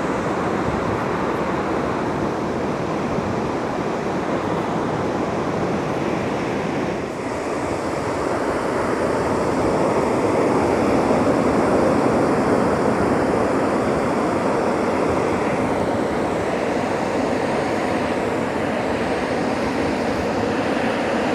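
Ocean surf washing onto a beach, a steady rush of waves with wind on the microphone. It swells a little about halfway through.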